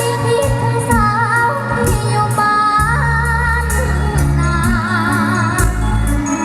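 A girl singing a melody with wavering vibrato over an amplified band accompaniment with a heavy bass line and a regular drum beat.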